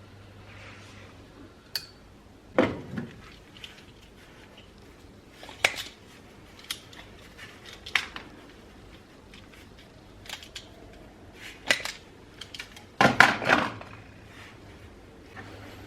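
Irregular metallic clicks and clanks of tools and small metal parts being handled, about seven separate knocks with a louder clatter of several near the end.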